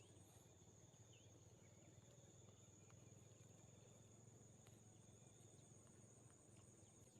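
Near silence, with faint insects, typical of crickets, making one steady high-pitched drone and a few faint ticks.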